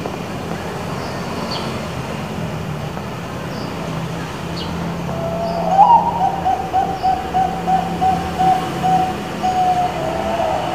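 Bangkok-type perkutut (zebra dove) cooing, starting about halfway in: a rising opening note, then a fast run of about ten short, evenly repeated coos on one pitch, ending on a slightly lower drawn-out note. A steady low hum lies underneath.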